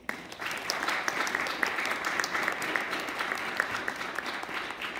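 Audience applauding: dense clapping that starts suddenly and holds steady.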